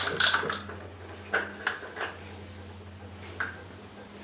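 Socket ratchet clicking in quick strokes in the first half second as the canister oil filter is backed off with a cap-type filter wrench on an extension. Then a few single light metallic clicks and knocks, spaced apart.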